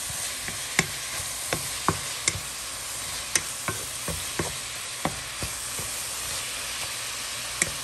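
Sliced beef brisket sizzling steadily in a granite-coated frying pan while a wooden spatula stirs it, knocking against the pan about a dozen times at irregular moments.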